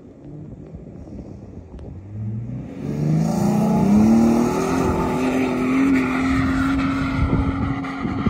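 Short-wheelbase Toyota Land Cruiser 70-series engine revving hard as it charges up a sand dune. Its note rises over two or three seconds, then holds steady at high revs and eases off near the end.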